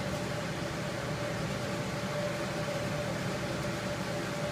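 Steady mechanical hum with one constant mid-pitched tone.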